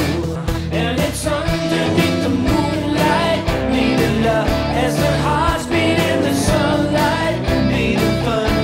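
Rock song with a steady drum beat and a sung melody.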